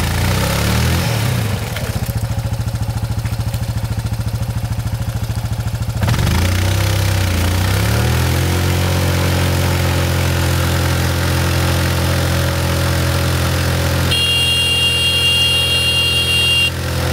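ATV engine running under throttle while the quad sits bogged in a mud hole; the revs rise and fall at the start and again about six seconds in, then hold steady. A high thin whine joins for a couple of seconds near the end.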